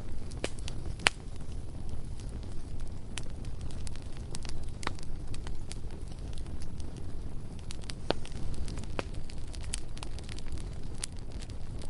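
Bonfire crackling: irregular sharp pops and snaps, the loudest about a second in, over a steady low rumble.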